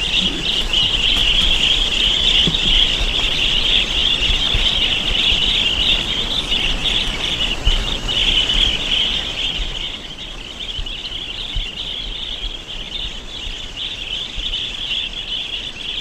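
A large flock of migratory birds calling together in a dense, unbroken high-pitched twittering chorus, a little quieter from about ten seconds in, with a low rumble underneath.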